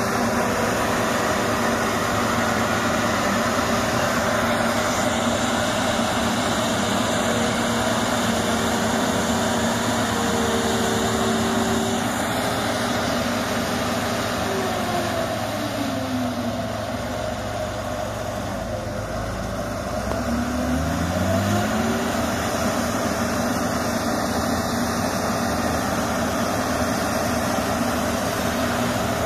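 Diesel engines of a New Holland 8060 combine harvester and a Sumitomo excavator running steadily; about halfway through, one engine slows down, then revs back up about six seconds later.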